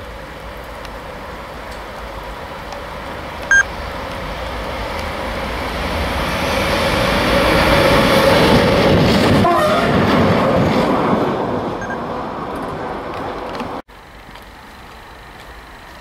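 An electric locomotive hauling a coach passes, its rail and running noise building to a peak around eight to ten seconds in and then fading. A very short sharp horn toot sounds about three and a half seconds in. The sound cuts off suddenly near the end, leaving only faint outdoor ambience.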